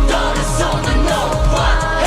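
Electronic pop backing music with a steady kick drum and a wordless, gliding vocal line.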